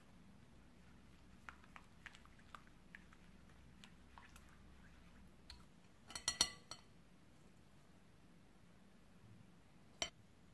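Light kitchen clicks and clinks: a silicone spatula tapping and scraping a ceramic bowl, then a quick cluster of clinks from a stainless mesh sieve against a glass bowl, and one sharp clink near the end as a ceramic bowl of flour touches the sieve.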